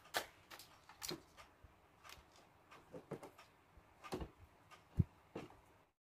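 Irregular clicks and rustles of scooter wiring and a corrugated plastic wire loom being handled, with a sharper knock about five seconds in.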